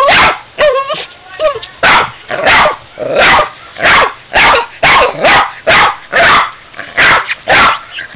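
Boston terrier barking over and over at a ceramic piggy bank, a fast run of sharp barks about two a second, with a brief whine about a second in.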